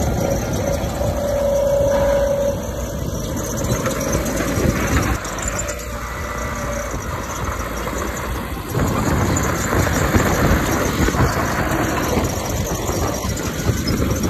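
Diesel engines of earthmoving machinery, a dump truck and a mini bulldozer, running steadily. A short high squeal comes about a second in, and the engine noise grows louder about nine seconds in.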